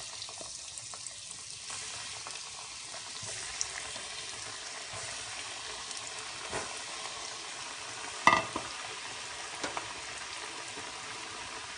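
Breadcrumb-coated paneer pieces deep-frying in hot oil in a kadhai: a steady sizzle that starts as the pieces go in. A single sharp clink about eight seconds in, with a few lighter ticks around it.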